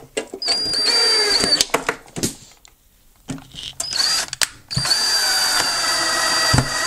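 Cordless drill driving screws through a metal bracket and into particleboard. The motor whines in several runs of one to two seconds, with short pauses between them.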